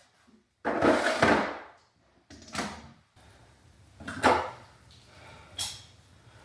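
Workshop handling noises: a scrape lasting about a second, then three short sharp clacks spaced a second or so apart.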